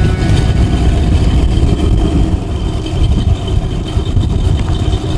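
Chevrolet Corvette C3's V8 engine running at low speed with a steady, deep exhaust rumble as the car rolls away.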